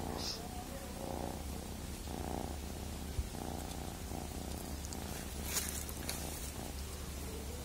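A young tabby-and-white domestic cat purring steadily while it is stroked under the chin. The purr rises and falls about once a second, with one brief click about three seconds in.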